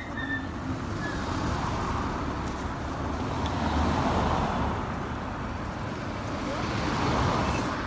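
Traffic noise from cars passing close by on a street, tyre and engine noise with no clear tone. It swells as one car goes by about halfway through and again near the end.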